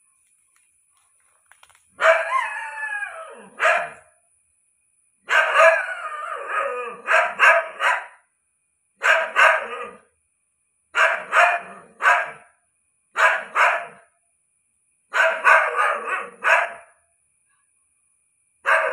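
Dog barking in loud bouts about every two seconds, starting about two seconds in. Each bout is a drawn-out cry followed by two or three short, sharp barks.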